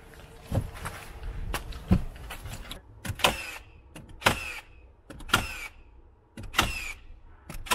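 Hitachi nail gun firing into wood trim and sheathing, about one shot a second from about three seconds in, each sharp bang followed by a short falling whine. Lighter clicks and knocks of handling come before the first shot.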